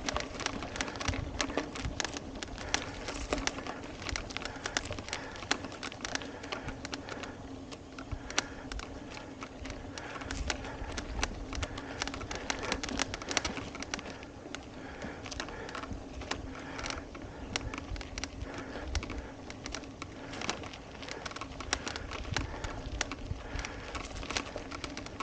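Bicycle rolling over a rough dirt and gravel trail: tyres crunching and the frame and chain rattling with many irregular knocks over the bumps, over a steady hum and some wind rumble.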